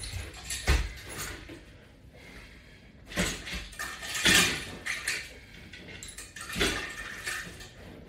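Breathing and movement noise from a man doing a seated resistance band exercise. Three louder noisy bursts come about a second in, around the middle and near the end, as he twists through each rep.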